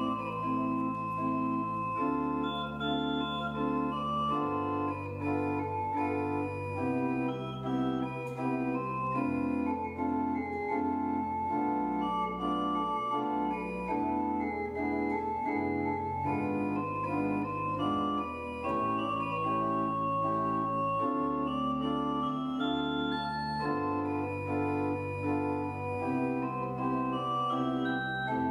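Church organ playing a prelude: held chords over a moving bass line, with notes changing about every second.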